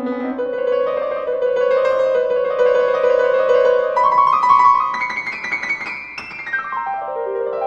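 Grand piano played solo: fast trill-like figures around held notes, then a quick run down the keyboard near the end.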